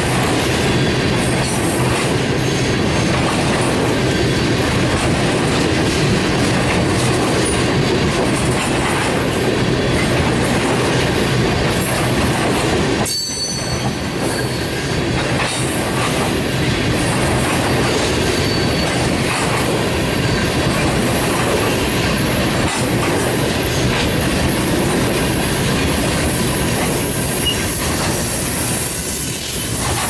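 Freight train of oil tank cars rolling past close by: a steady rumble of steel wheels on rail with a rhythmic clickety-clack over the rail joints, and a thin wheel squeal now and then.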